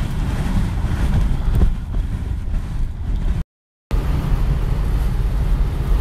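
Low, steady rumble of off-road trucks driving on snow, mixed with wind buffeting the phone microphone. The sound cuts out for a moment about three and a half seconds in, then the rumble goes on, heard from inside a vehicle cabin.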